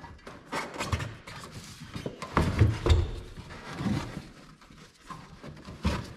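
Irregular dull thumps, knocks and rubbing as a spare tire is pushed down, squashed flat and wrestled out of a car's trunk, rubber and carpet scraping against each other.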